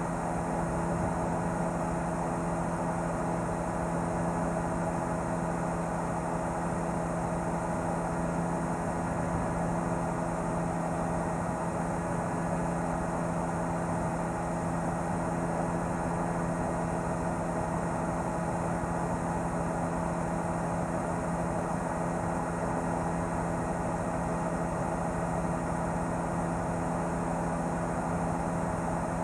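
News helicopter's engine and rotor noise in flight: a steady drone with several held tones that does not change.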